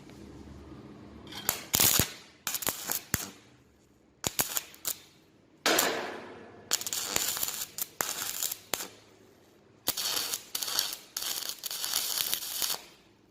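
Electric arc welding steel door hinges to the frame: a string of crackling arc bursts, short tack welds at first, then longer runs of about two to three seconds near the end.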